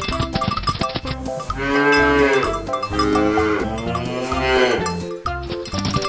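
A cow mooing twice, two long moos, over background music.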